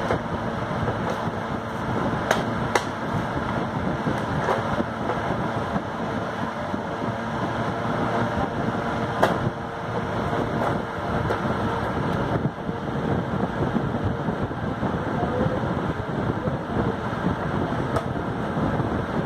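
Steady rushing background noise, with a few sharp taps from a baby slapping a small toy drum.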